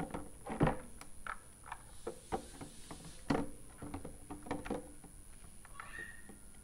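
Light plastic clicks and knocks, scattered and irregular, as the clear feed chamber of a Promix SJ-02 horizontal slow juicer is fitted and twisted onto the motor body.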